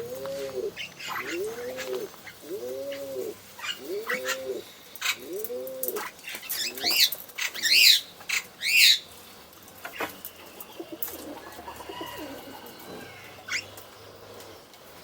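Male pigeon cooing: a repeated rising-and-falling coo, about five in the first six seconds, at a steady pace of roughly one every second and a half. Around seven to nine seconds in, three loud, high chirps from a small bird ring out, the loudest sounds here; after that only faint scattered sounds remain.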